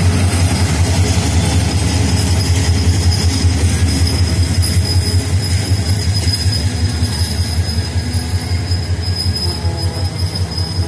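Diesel-hauled passenger train rolling past close by, its coaches' wheels rumbling and clattering on the track, with a steady high-pitched wheel squeal over the top.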